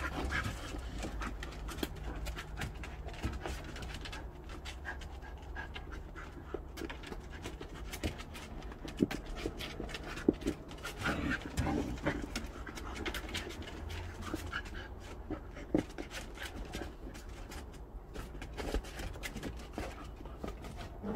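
Dogs panting while they nose and mouth a ball, with many small clicks and scuffs on the wooden decking.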